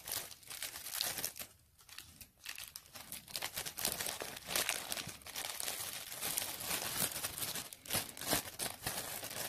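Thin clear plastic bags crinkling and rustling in irregular crackles as a small grip-seal bag is pushed into a larger plastic bag, with a short lull about two seconds in.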